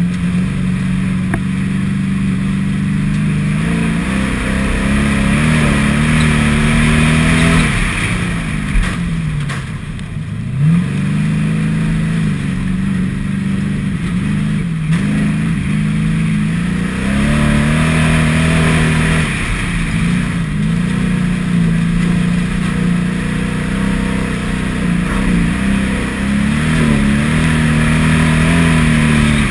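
Field stock car's engine heard from inside the caged cockpit, revving up and down repeatedly as it is driven hard. About a third of the way in the revs fall away and then climb again, with a couple of brief thumps around then.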